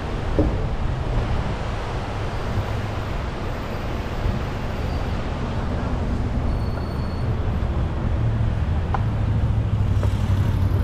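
Steady street traffic noise of passing cars, with a low engine rumble that grows a little louder over the last few seconds.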